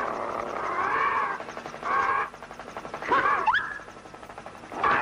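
Cartoon animal cries: a long wavering whining cry, then shorter yelps, one with a quick rising squeal about three seconds in.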